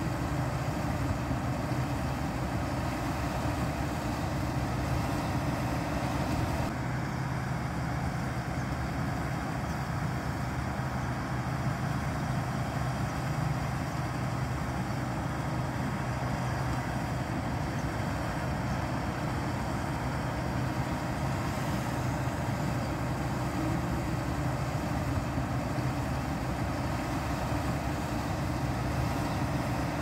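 Combine harvester's diesel engine and threshing machinery running steadily under load while harvesting rice, a continuous low drone.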